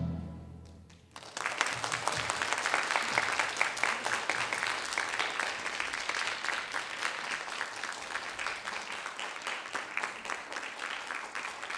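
Ballet music dies away, and after about a second's pause an audience breaks into applause, which carries on and eases off slightly near the end.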